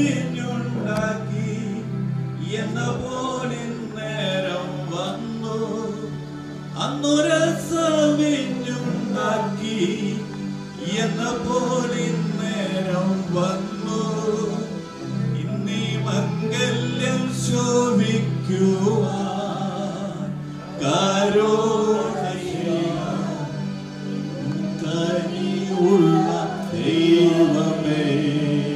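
A Malayalam Christian wedding hymn is being sung. A singing voice with vibrato carries a slow melody over sustained accompanying chords.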